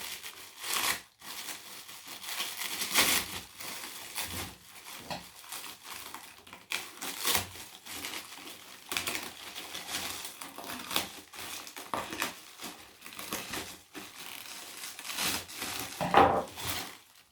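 Packing material crinkling and rustling in irregular bursts as a part is unwrapped from its box.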